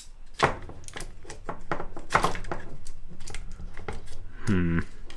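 Plastic housing parts and internals of a cordless screwdriver clicking and knocking as they are handled and fitted together, with a brief hummed voice sound near the end.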